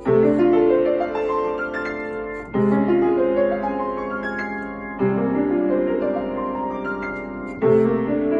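Solo piano playing a slow piece: a low chord is struck four times, about every two and a half seconds, with single melody notes above it that are left to ring and fade.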